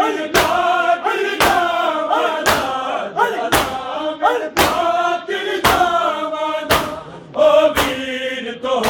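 Male voices chanting a Punjabi noha together, with loud, sharp chest-beating slaps (matam) in unison about once a second.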